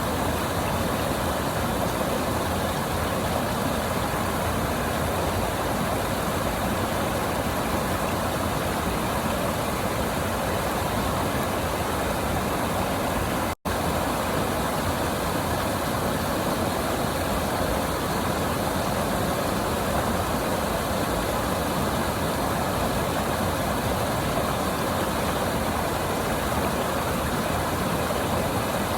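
River water rushing in a steady, even flow, cutting out for an instant about halfway through.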